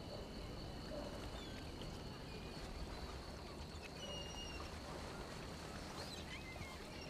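Night-time outdoor ambience: a steady high insect trill over a low rumble, with a few short chirps scattered through.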